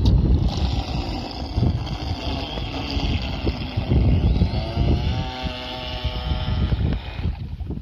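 Homemade RC boat's 1800Kv brushless motor and propeller running at speed: a high whine that wavers in pitch and stops near the end, over heavy wind rumble on the microphone.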